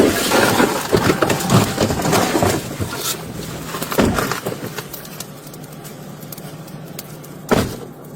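Vehicle noise with rattling and knocks for the first few seconds, a heavy knock about four seconds in, then settling to a steady low hum, with one sudden loud thump near the end.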